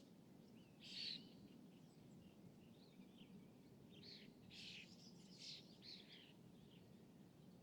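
Quiet outdoor lake ambience of small birds chirping: one louder chirp about a second in and a cluster of short calls from about four to six seconds. A faint steady low background rumble runs underneath.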